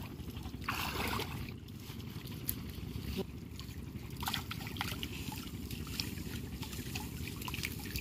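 Shallow muddy water splashing and trickling as hands scoop through it and gather up a fine mesh fishing net, with scattered small splashes and drips. The louder splashes come about a second in and around four seconds.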